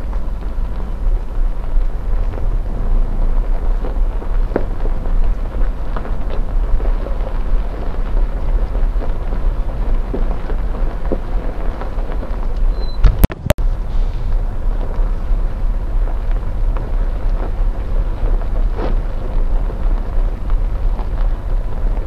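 Steady low rumble of a safari vehicle driving along, mixed with wind buffeting the microphone. A sharp click about thirteen seconds in.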